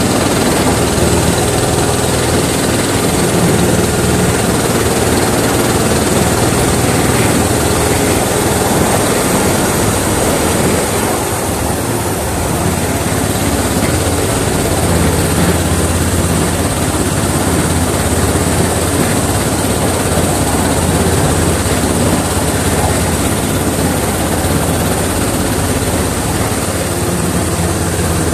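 Miniature class 31 locomotive running steadily, heard from the cab: a constant low hum over the noise of the train on the move.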